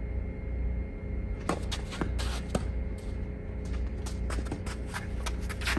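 Scattered light taps and scuffs of players' shoes and a tennis ball on an outdoor tennis court between points, irregular and denser in the second half, over a steady low hum.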